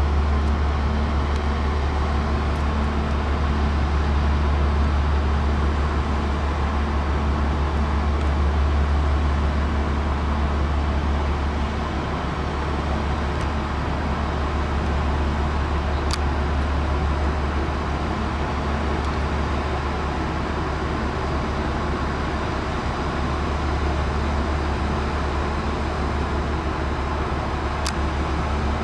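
Large car ferry's diesel engines and machinery running with a steady deep hum and a wash of mechanical noise, two faint clicks about halfway through and near the end.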